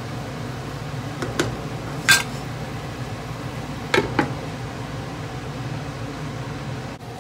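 Cookware clinking over a steady low hum: a ringing metal clink about two seconds in, then a glass pan lid set down on a large frying pan with two quick knocks about four seconds in.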